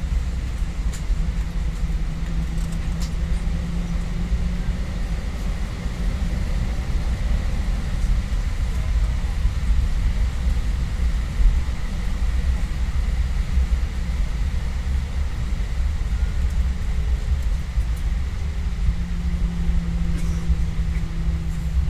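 Airbus A320 cabin noise while taxiing: a steady low rumble from the engines and the rolling airframe, heard inside the cabin. A faint low hum swells twice.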